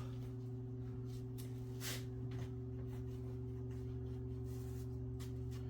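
A few short, faint wiping strokes, most likely a rag cleaning the car door's window-edge channel, over a steady low electrical hum.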